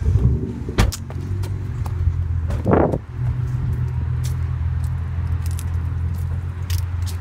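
Car engine running at idle, a steady low hum, with a few sharp clicks and a brief rustle about three seconds in.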